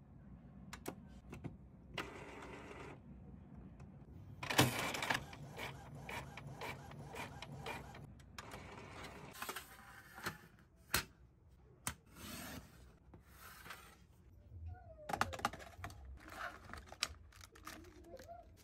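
A small printer, switched on by a button press, runs with a steady low hum through the first half of the clip. Sharp clicks and knocks and plastic rustling of packaging being handled run throughout.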